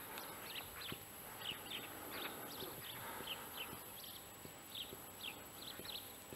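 Faint, scattered chirps of small birds, short falling high notes at about two or three a second, over a quiet outdoor background.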